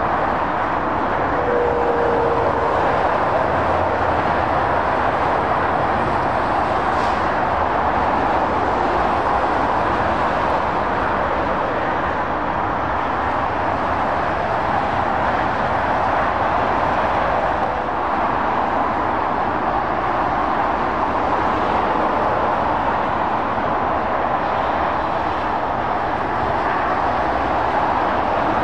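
Steady motorway traffic noise: tyres and engines of lorries and cars passing at speed, blended into an even, continuous hiss with no single vehicle standing out.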